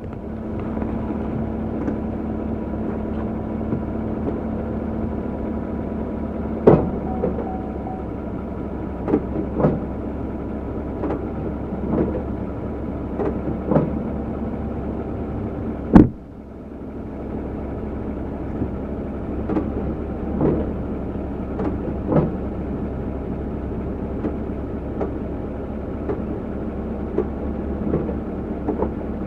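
GMC vehicle's engine idling steadily, broken by a series of clunks from the drivetrain as it is shifted between reverse and drive, the sharpest about halfway through.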